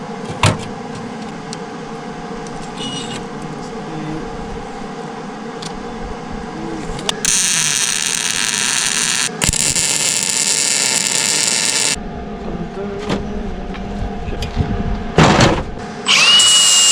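Two short bursts of arc-welding hiss, each about two to three seconds long, over a steady engine hum, as frame pieces of a scrap-steel welding cart are tack-welded. Near the end a louder noise with a steady high whine starts.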